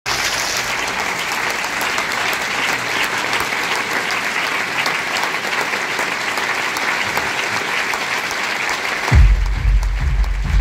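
Large audience applauding. About nine seconds in, the clapping drops away abruptly and music with a heavy bass beat starts.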